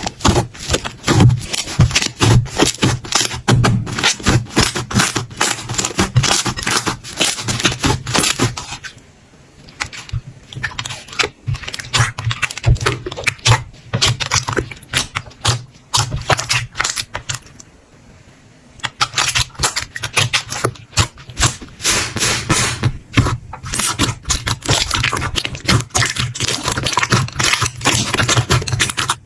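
Slime being squeezed, poked and pressed by hand, making a dense, irregular run of sticky clicks, crackles and pops, softer for a stretch about a third of the way in.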